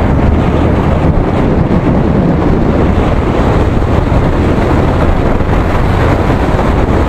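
Wind buffeting an action camera's microphone on a moving motorcycle, a loud steady rush, with a low steady hum from the motorcycle beneath it.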